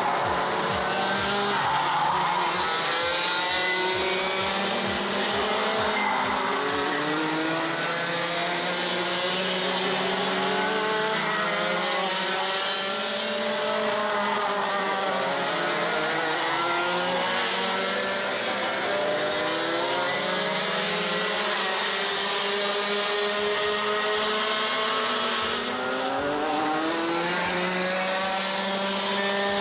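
Racing kart engines revving high, several at once, their pitch climbing and dropping again and again as they accelerate and lift around the circuit. These are the two-stroke engines of junior clutch-class karts.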